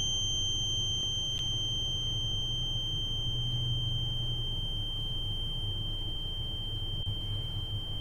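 A steady high-pitched electronic tone held over a low hum, slowly fading, with a faint click about a second and a half in.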